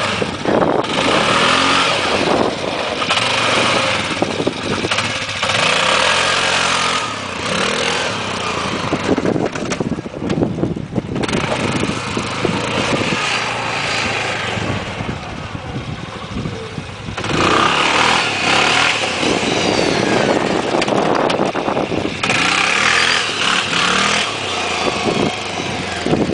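Dinli 700 ATV engine revving hard under throttle and easing off in several long runs, its pitch rising and falling as the quad accelerates for wheelies through a CVT fitted with a Dr. Pulley HiT clutch.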